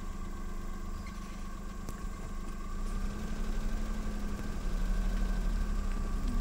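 Vehicle engine running at low speed with a steady low hum, heard from the moving vehicle; it grows a little louder about halfway through.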